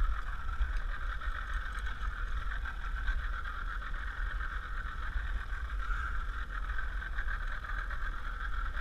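Outboard motor running steadily at trolling speed, with wind rumbling on the microphone.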